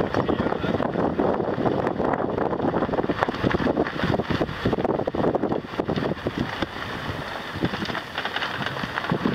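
Car driving on a rough, bumpy dirt track: tyre and road noise with irregular knocks and jolts, and wind buffeting the microphone.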